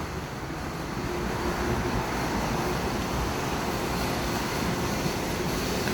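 Steady outdoor background noise, an even hiss with no distinct events, slightly louder from about a second in.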